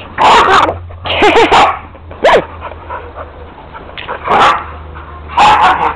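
Two dogs, a red dog and an American Staffordshire terrier, barking and yipping in loud short bursts while they playfight, with brief pauses between the bursts.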